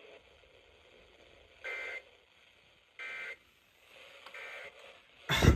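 Emergency Alert System end-of-message data bursts closing a severe thunderstorm warning: three short buzzy bursts about 1.3 s apart, the third fainter. A loud vocal outburst comes in near the end.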